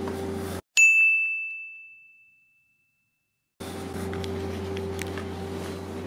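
A single bright bell-like ding that rings out and fades over about two seconds, heard in dead silence cut between two stretches of steady low humming background.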